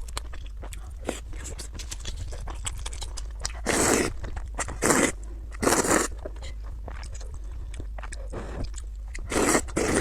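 Close-miked eating: a person chewing food with many small wet mouth clicks, and four louder bites about four, five, six and nine and a half seconds in.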